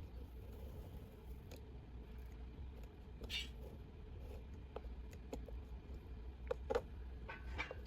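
Scattered light clicks and taps of handling over a steady low hum, with a short scraping rustle about three seconds in and a cluster of sharper clicks near the end.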